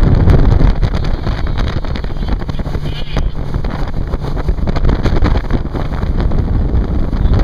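Wind buffeting the microphone on a small motorboat under way, over the steady low drone of its engine and the rush of the hull through the water.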